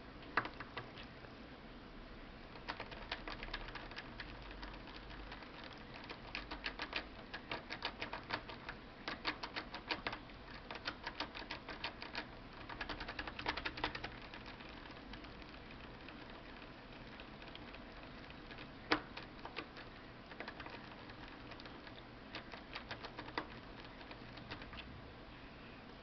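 Tubular lock pick wiggled in a tubular lock, rattling in rapid bursts of light metallic clicks as its feelers bounce against the spring-loaded pins. A quieter spell comes midway, then one sharper click and a few more bursts.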